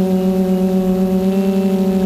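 Hoverthings Flip quadcopter's brushless T-Motor motors spinning 10x4.5 props, a steady whining hum held at one pitch in forward flight, as picked up by the onboard camera.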